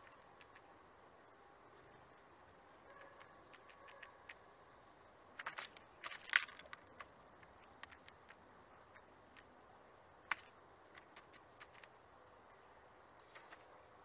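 Eurasian jay pecking and rummaging in a wicker basket of seeds and nuts: scattered sharp taps and clicks over a quiet background, with a cluster of louder taps around the middle and one single loud tap a few seconds later.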